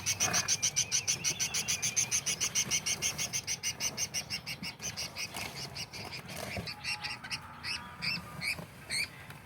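Small parrot calling: a fast run of shrill chirps, about seven a second, for the first half. Near the end it changes to slower separate chirps that fall in pitch.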